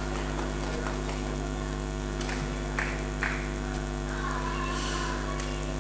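Background music with a steady hum under it, and a few short clicks in the middle.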